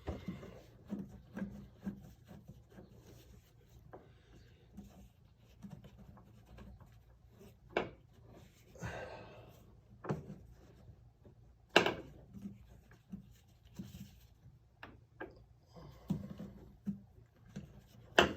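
Hand-work on a McLaren 650S's front suspension while a new accumulator is fitted: scattered light clicks, knocks and rubbing from a wrench and parts being handled. There is a rustling stretch about nine seconds in, and sharp clicks near twelve seconds and again at the very end.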